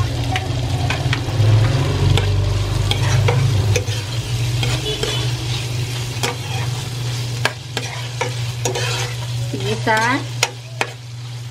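Diced tofu sizzling in hot margarine with sautéed garlic and onion while a spatula stirs it, scraping and tapping against the pot. A steady low hum runs underneath, and there is a short squeak near the end.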